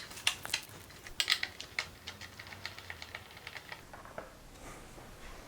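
Phillips screwdriver backing out the two fasteners that hold a motorcycle's stock taillight: a run of small sharp clicks and ticks, a few louder ones in the first second or two, then quicker, fainter ticking.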